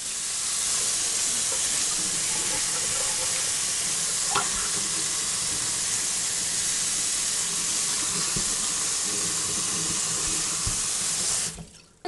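Kitchen faucet running onto a whole raw turkey in a stainless steel sink, a steady splashing rush of water as the bird is rinsed of its salt brine. The water sound cuts off suddenly near the end.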